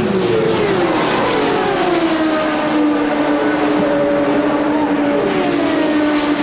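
Indy car engines at full speed from a race broadcast, their notes sliding down in pitch as the cars sweep past, then settling into a steady high engine note.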